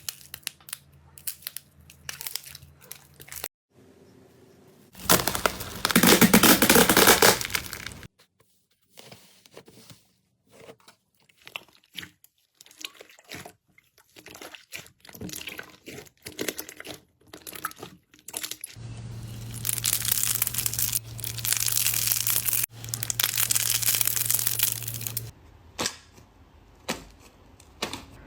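Slime being pressed, poked and squeezed by hand, giving scattered sticky clicks and pops. Two longer stretches of dense crackling and crunching come about five seconds in and again from about nineteen to twenty-five seconds.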